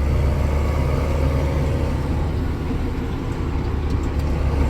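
Tractor engine running steadily under way on the road, a constant low drone.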